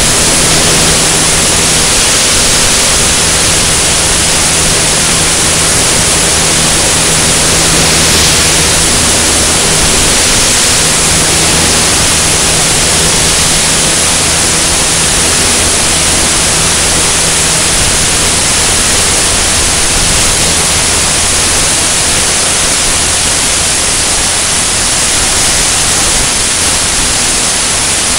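Loud, steady rush of airflow buffeting a camera mounted outside a high-wing single-engine light aircraft in flight, with the low, even drone of the piston engine and propeller underneath.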